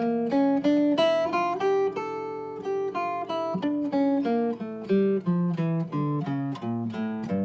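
Archtop guitar playing the D harmonic minor scale, with its raised C sharp, as single plucked notes in a steady even rhythm, about three notes a second, stepping up and down the scale.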